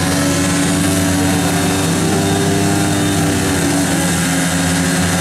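Several speedway bikes' single-cylinder methanol-fuelled engines running at steady high revs as the riders line up at the start tapes. The tones overlap from more than one engine.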